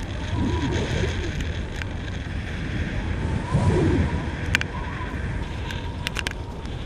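Wind buffeting an action camera's microphone, a steady rushing noise. There are two brief voice-like sounds, about half a second and three and a half seconds in, and a few sharp clicks later.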